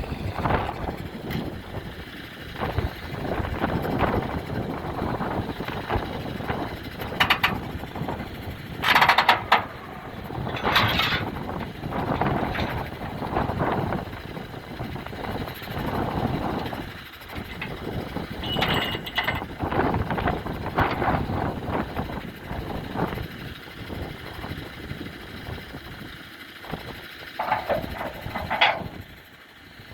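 Truck driving along a road, with a steady engine and road noise that rises and falls. It is broken by a few sharp clatters, the loudest about nine seconds in.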